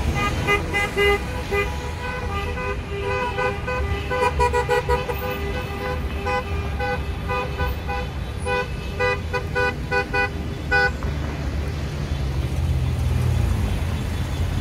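Several car horns honking in protest, a mix of short repeated beeps and longer blasts, stopping about eleven seconds in. A steady low rumble of slow-moving car engines runs underneath.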